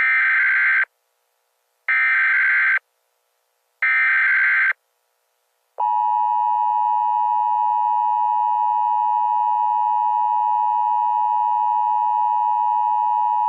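Emergency Alert System tones: three short bursts of buzzing SAME header data, about two seconds apart, that open a new alert. Then, from about six seconds in, the steady two-tone EAS attention signal holds for about eight seconds and cuts off suddenly.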